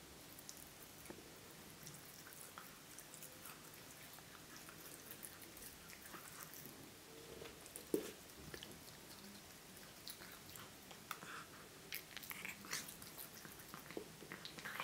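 A cat chewing and biting small pieces of vegetarian sausage: faint wet clicks and crunches that come thicker in the second half, with one louder thump about eight seconds in.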